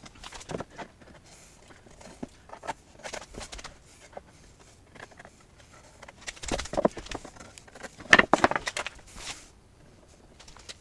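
Wooden boards being handled and set in place against a wall cleat: irregular knocks and clunks, with a cluster of louder knocks about two thirds of the way through and a brief scrape near the end.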